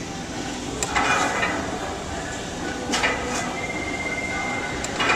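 An ab crunch machine being worked, with three short clanks about two seconds apart as it goes through its reps, over a steady rumbling background.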